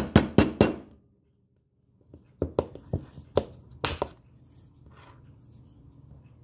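Sharp taps of a piece of wood on the end of an Arrma BLX 2050kv motor's rotor shaft, driving the shaft into bread packed behind the bearing in the end bell so as to push the bearing out. Four quick taps at the start, then after a silent break about seven more, unevenly spaced.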